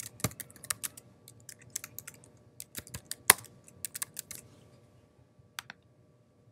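Computer keyboard typing: a quick run of separate keystrokes for about four and a half seconds, then one more click a second later.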